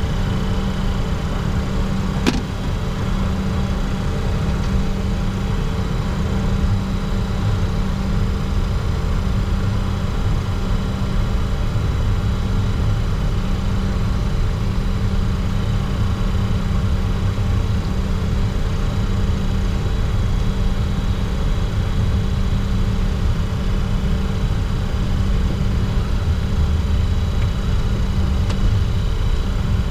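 Steady cockpit noise of a Bombardier Challenger 604 taxiing, its turbofan engines at low taxi thrust giving a constant hum with a low rumble. A single short click comes about two seconds in.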